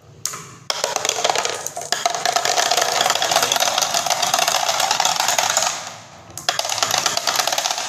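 Dozens of marbles rolling down grooves in a wooden board and clattering against each other and into a green plastic toy dump truck bed: a dense, continuous rattle of clicks from under a second in, easing off near six seconds before a second run of clatter.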